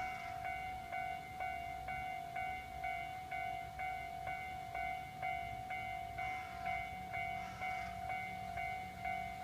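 Japanese railway level-crossing alarm ringing steadily, its electronic bell struck about twice a second. A low rumble underneath grows stronger about six and a half seconds in.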